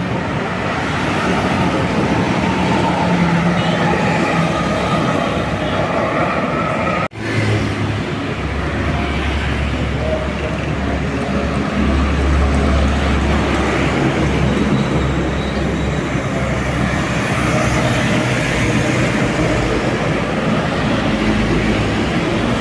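Road traffic with a heavy bus engine running close by, a deep rumble over steady road noise that is strongest midway. The sound breaks off for an instant about seven seconds in.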